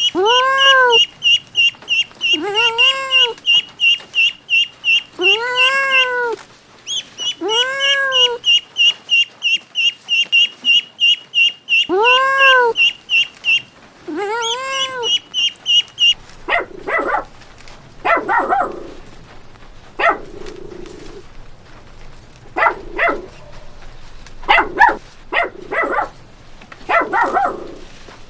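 Poultry calling: rapid high peeping, about four pips a second, with a louder call that rises and falls every two seconds or so. About sixteen seconds in this gives way to a dog barking in short, irregular bursts.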